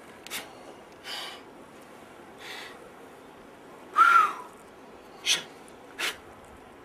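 A rock climber's short, forceful exhalations of effort on a hard sequence, about six sharp breaths a second or so apart. About four seconds in comes a louder voiced grunt, the loudest sound here.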